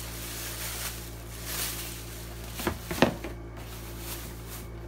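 Handling noise from small objects: a soft rustle, then a few clicks and a sharp knock about three seconds in, as things are set down and picked up.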